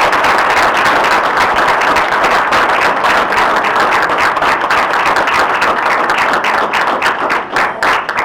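Audience applauding: a dense round of clapping that thins out into a few separate claps near the end.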